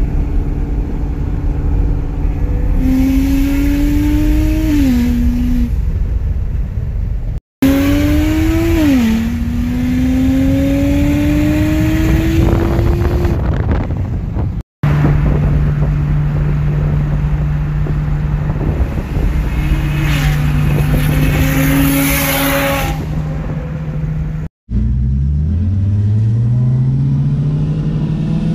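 Single-turbo BMW 335i's N54 inline-six pulling hard, heard from inside the cabin. Its pitch climbs, drops sharply at each gear change and climbs again, across several short clips split by brief silent cuts; one stretch holds a steady pitch, and the last clip rises from low revs.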